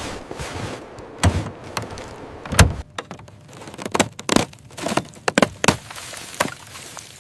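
A series of sharp knocks and clunks: a few spaced ones in the first three seconds, the loudest about two and a half seconds in, then a quicker cluster from about four to six and a half seconds in.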